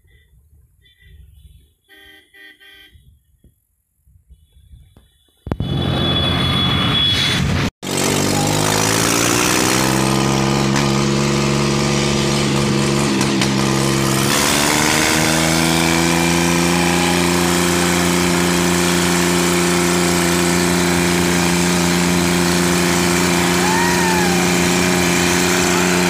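A few faint, short vehicle horn toots. About five seconds in, a tractor's diesel engine comes in loud and close, climbing in pitch in steps as it pulls away, then running steadily.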